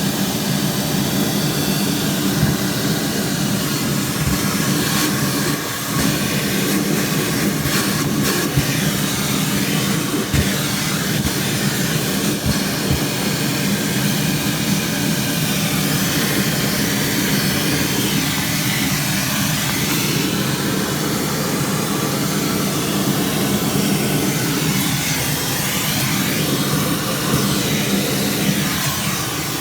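Steady machine whoosh with a constant low hum, and a few brief knocks scattered through it.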